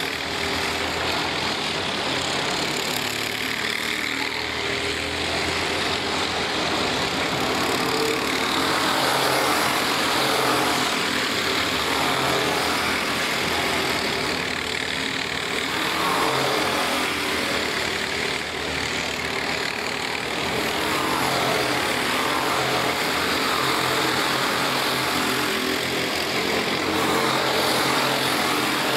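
Several racing karts' four-stroke engines running hard as a pack of karts races by, the pitch rising and falling again and again as they pass and rev through the corners.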